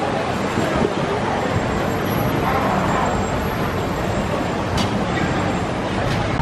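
Steady street traffic noise from passing vehicles, with a few light clicks in the second half.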